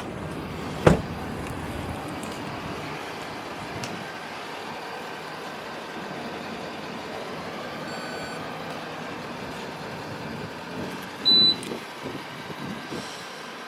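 Ford Mustang GT being driven: steady road and engine noise, with a sharp knock about a second in and a brief high beep near the end.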